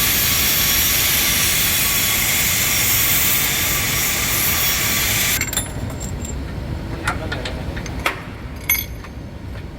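Loud, steady hissing machine noise that cuts off abruptly about five seconds in, leaving a low rumble with a few sharp knocks.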